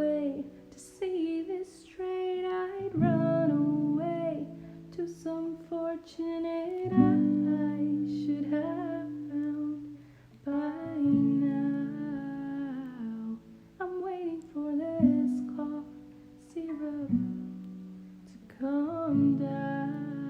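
An acoustic guitar strummed in chords struck about every four seconds, each left ringing, under a wordless sung or hummed melody.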